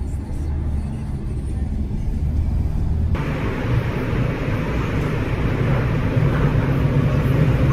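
Low road rumble heard from inside a moving car. About three seconds in it cuts abruptly to a louder, fuller rumble with more hiss.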